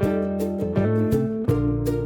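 Background music: strummed guitar with a steady beat.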